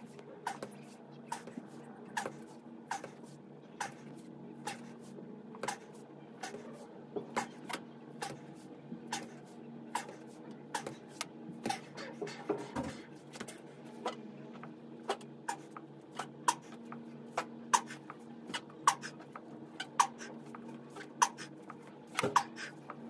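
A run of sharp clicks, roughly one a second, over a steady low hum, with a dull thump about halfway through.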